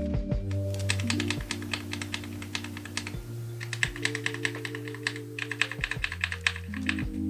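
Rapid typing on a Drop Alt mechanical keyboard with Kailh Speed Silver linear switches, in two quick runs of keystrokes, over soft background music.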